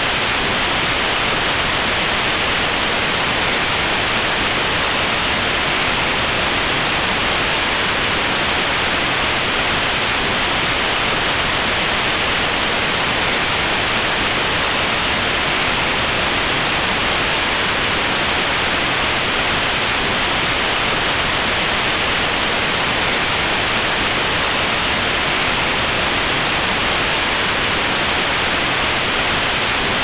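Steady, unchanging static hiss: white noise like that of an untuned analogue television, with most of its energy in the treble.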